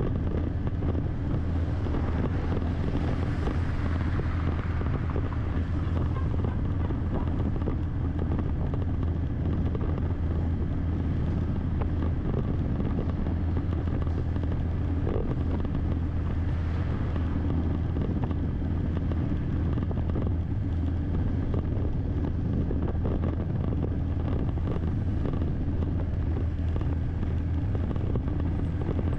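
Steady engine and road noise of a vehicle driving at an even pace, a constant low rumble, with some wind noise on the microphone.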